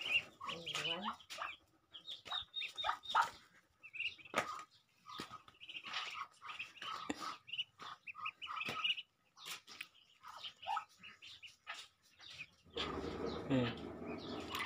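Muscovy ducklings peeping: many short, high chirps throughout, with a few soft clicks. About 13 s in a louder, lower sound rises over them.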